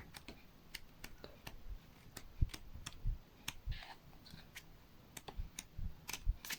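Pages of a small photo flipbook being turned and handled: a string of light, irregular clicks and taps with a few short, soft paper rustles.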